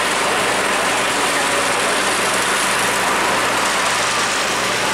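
Engines of parked fire engines and a water tanker truck running steadily, a constant engine drone under an even hiss with no breaks.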